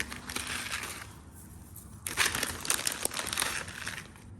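Crinkling of plastic packaging being handled, in two spells: one for about the first second and a longer one from about two seconds in.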